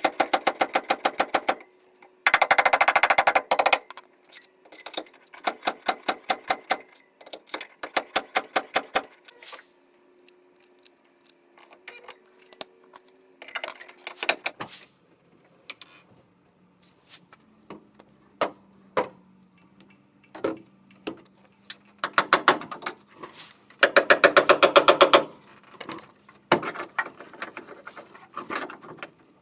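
A wrench working bolts: rapid, even clicking or hammering in repeated short bursts of a second or two, with pauses between.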